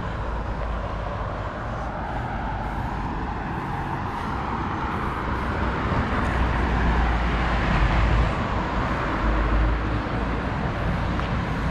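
Road traffic on a busy city street: a steady wash of car engine and tyre noise with a low rumble, swelling as vehicles go by about halfway through.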